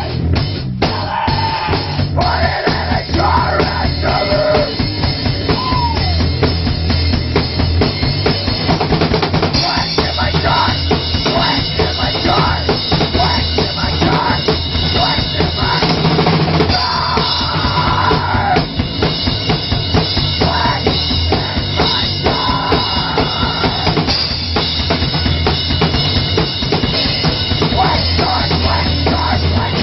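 Rock band music with a drum kit beat, bass drum and snare prominent: a live demo recording of a rock song.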